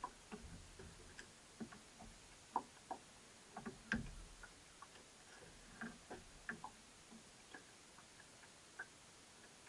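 Faint, irregular small clicks and knocks of fishing tackle being handled in a small boat: a rod and reel being worked against the gunwale, the sharpest knock about four seconds in.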